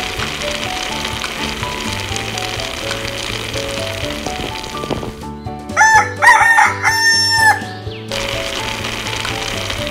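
A rooster crows once, a cock-a-doodle-doo about three seconds long that starts about five seconds in and is the loudest sound. Light background music and the sizzle of curry simmering in a small pan run before and after the crow.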